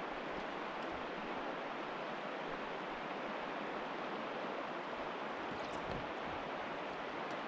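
Steady rush of flowing river water, with a couple of faint clicks about six seconds in.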